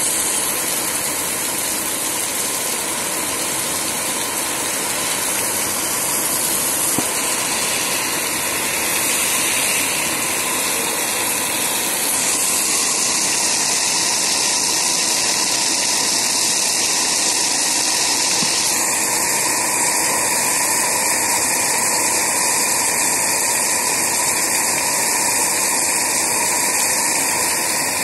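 Heavy typhoon rain pouring down: a loud, steady, even hiss of downpour.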